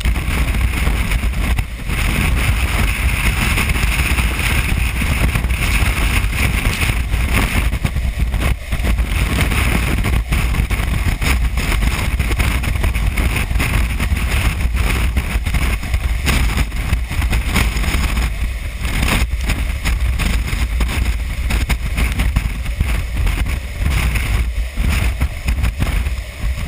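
Storm wind of straight-line gusts, guessed at about 60 mph, battering the microphone with a loud, unbroken rumble and hiss that surges and eases. It drops off suddenly at the very end.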